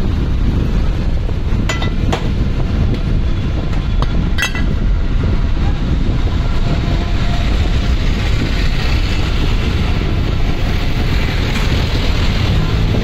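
Steady low rumbling noise, with a few sharp metallic clinks about two and four seconds in as parts of a dismantled tractor starter motor are handled on the workbench.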